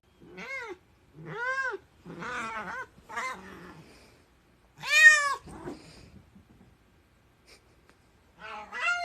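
A cat meowing over and over, each meow rising and then falling in pitch, the loudest about five seconds in, then another after a pause near the end.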